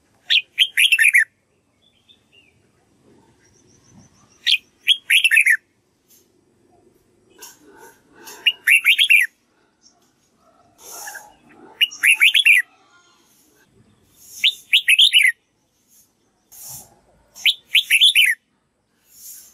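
Red-whiskered bulbul singing: six short, loud phrases, each a quick run of falling notes, repeated every three to four seconds.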